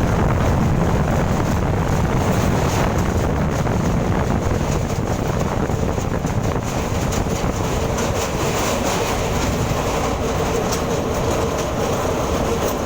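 Steady rumble and rattle of a moving train, with wind noise on the microphone.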